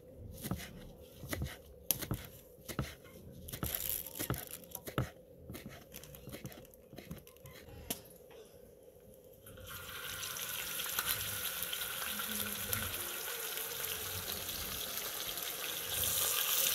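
A knife chops spring onions on a wooden cutting board: a string of irregular sharp taps for the first nine seconds or so. Then beef steaks sizzle steadily in hot oil in a talandara, a wide steel frying pan, getting louder near the end as another steak is laid in.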